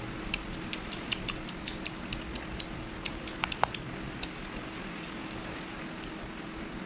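Chopsticks clicking and tapping against fried pork ribs and the serving platter as pieces are picked up: a run of irregular sharp clicks, mostly in the first half, over a steady low hum.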